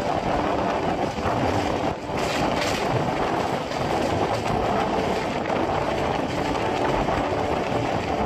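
Rajdhani Express passenger train running, a steady rushing noise of the moving train with a short dip about two seconds in.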